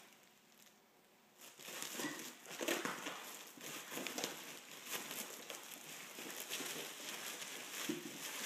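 Clear plastic wrapping around a packed sleeping bag crinkling and rustling as hands grip and pull at it, with many small crackles, starting about a second and a half in.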